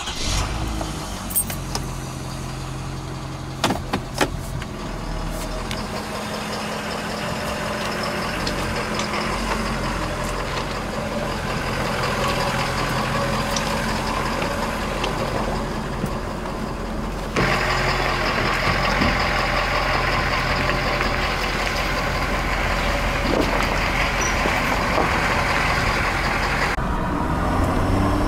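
Pickup truck engine running, heard from inside the cab, as the truck moves off slowly towing a dump trailer, with road and cab noise. There are a couple of sharp clicks about four seconds in.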